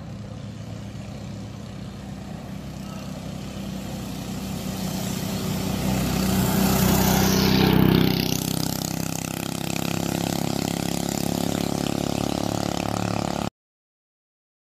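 Mini bike's Briggs & Stratton single-cylinder flathead engine running at speed. It grows louder as the bike approaches and is loudest as it passes close about eight seconds in, then runs on steadily until the sound cuts off near the end.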